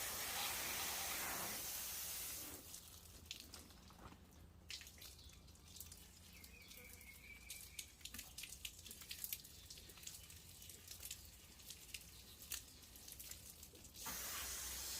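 Water spraying with a steady hiss that stops after a couple of seconds, leaving scattered drips and small ticks of water; the spray starts again near the end.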